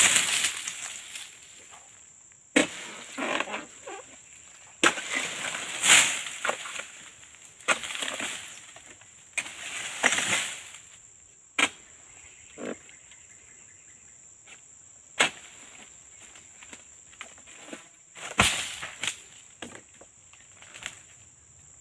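Irregular sharp cracks and rustling crashes of a pole-mounted harvesting sickle cutting oil palm fronds, with the cut fronds falling through the leaves. Under them runs a steady high insect drone.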